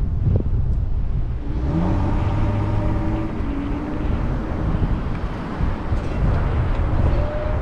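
Car driving, with wind buffeting the camera microphone as a steady deep rumble. An engine note rises in pitch from about a second and a half in, as if accelerating.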